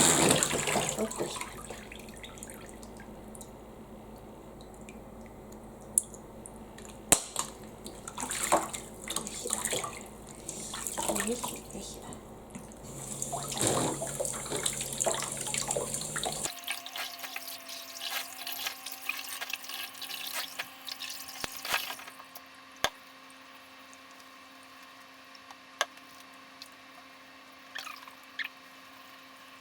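Water splashing and running during a small dog's bath, with scattered drips and small knocks; the steady hiss of water cuts off suddenly about halfway through, leaving occasional drips and light clicks.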